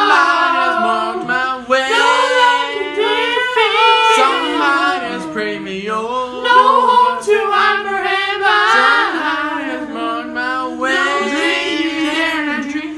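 Multitracked a cappella singing: one young man's voice layered into several harmony parts, the lines held and moving together with no instruments.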